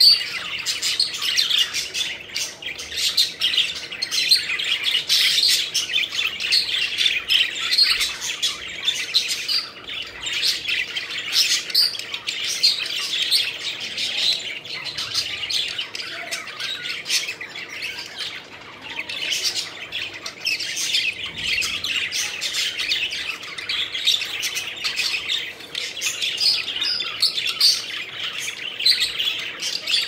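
A flock of budgerigars chirping and chattering continuously, many short calls overlapping with no break.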